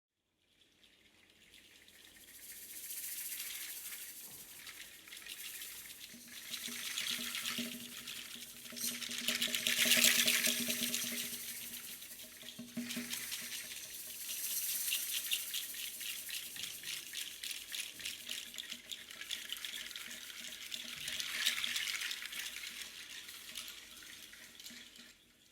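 A rain-like percussion effect: a fine rattling hiss that swells and fades in slow waves, loudest about ten seconds in. Faint low held tones sound under it in the middle.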